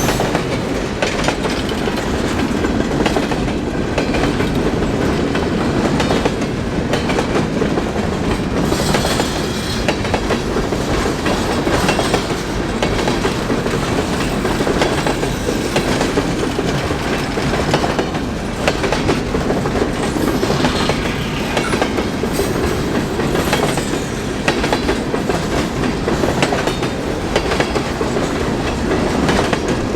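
Freight train cars rolling past: a steady rumble of steel wheels with clickety-clack over the rail joints.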